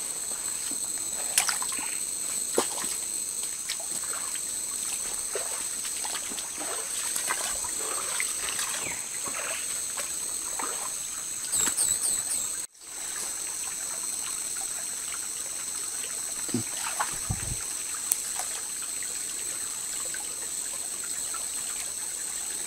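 Shallow jungle stream trickling, under a steady high-pitched drone of insects. A brief chirping trill comes about halfway through, and the water splashes near the end.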